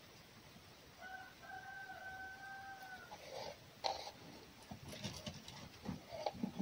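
A rooster crowing once: a short note, then one long held note lasting about two seconds. Scattered knocks and rustling follow, with a sharp knock about four seconds in.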